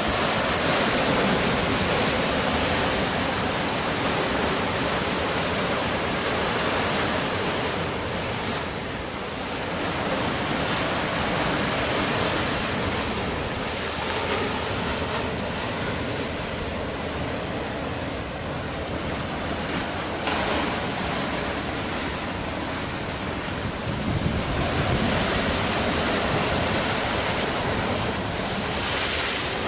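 Sea surf breaking and washing over shoreline rocks: a continuous loud rush that swells and eases as the waves come in.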